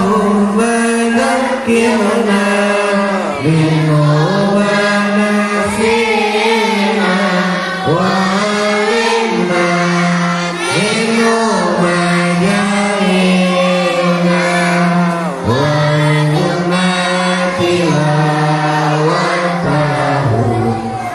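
Group of voices chanting an Arabic prayer together in unison, melodic, with long held notes that slide between pitches and short breaks between phrases.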